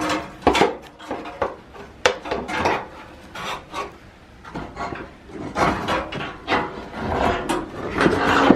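Irregular scraping and rubbing against wood, with a few sharp knocks, as a heavy stair lift is worked loose and shifted.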